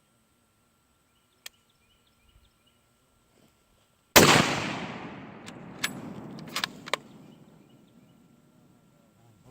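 A single rifle shot about four seconds in, fired with a 150-grain handload: a sharp crack followed by a long echo that fades over about three seconds. A few sharp clicks come during the echo.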